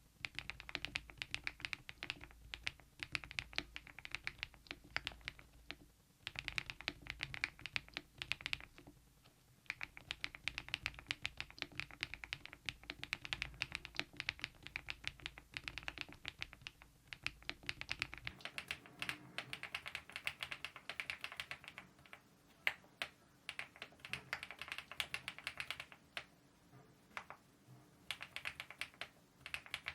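Fast typing on a mechanical keyboard fitted with KeyTok Godzilla dye-sublimation keycaps: a dense run of keystroke clicks with a few short pauses. A low hum under the typing stops about two-thirds of the way through.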